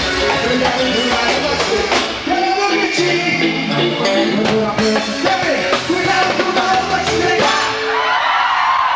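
A live dance band playing loud music with singing and a steady drum beat. Near the end the music drops out and a crowd shouts and cheers.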